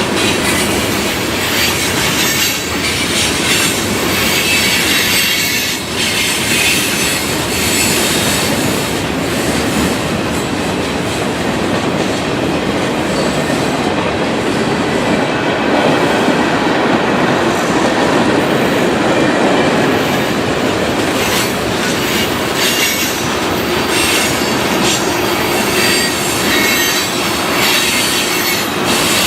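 Freight train cars rolling past: a steady, loud rumble of steel wheels on rail, with wheel squeal and clatter rising and falling at times.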